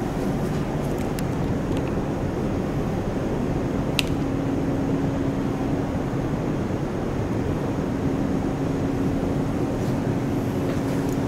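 Steady low drone of a car ferry's engines inside the passenger deck, with a constant hum and one sharp click about four seconds in.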